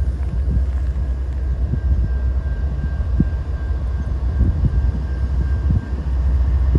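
A consist of CN GE Evolution-series (GEVO) diesel locomotives running light on the approach, a steady deep engine rumble with scattered low knocks. A faint high steady whine sits over it through the middle.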